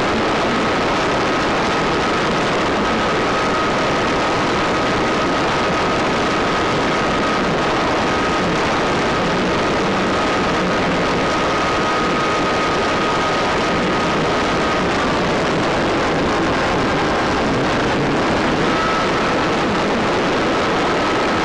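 Steady running noise of a battery-electric FPV plane in flight: motor and propeller with rushing air, as picked up on board. A thin high whine rides on top, drops out about two-thirds of the way through and comes back near the end.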